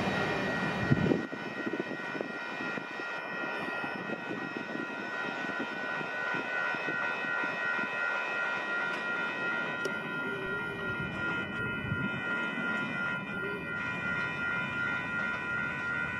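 Railroad grade-crossing bell ringing steadily while the rear of a grain train of covered hopper cars rolls away on the rails. The heavy rumble of the cars drops off about a second in, leaving a fainter rolling noise under the bell.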